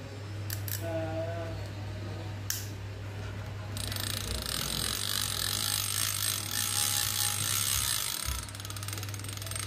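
Okuma Cavalla 5NII lever drag reel: a few sharp clicks while its handle is fitted, then the handle is cranked for about four seconds, the reel's mechanism giving a fast, dense run of fine clicks that eases off near the end.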